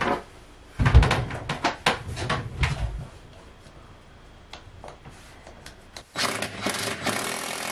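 Knocks and rattles of a wire closet shelf being handled against a wooden wall, the loudest about a second in. About six seconds in a cordless drill starts up and runs steadily, boring into the cedar wall paneling.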